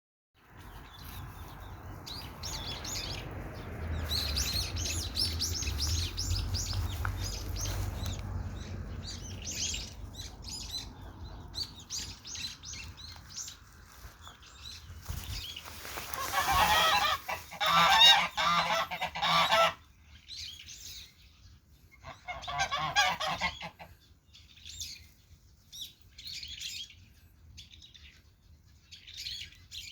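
Domestic geese honking in loud clusters, mostly in the middle of the stretch, with small birds chirping on and off. A low rumble fills the first several seconds.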